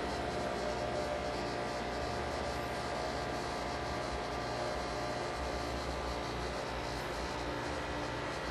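Steady mechanical drone: a low rumble with several steady tones above it and a faint hiss, unchanging throughout.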